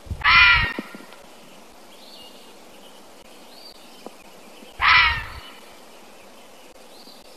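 Fisher (fisher cat) screaming: two shrill screams of about half a second each, one at the start and one about five seconds in, with a few faint chirps in the quiet background between them.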